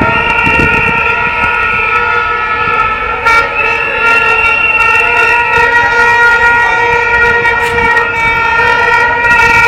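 Horns blowing a steady, held tone with brief breaks, loud over the noise of a street crowd.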